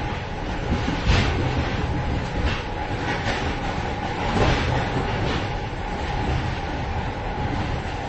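Moving train heard from inside a carriage vestibule: a steady rumble of wheels on track, with a clank or rattle every second or so and a thin steady tone underneath.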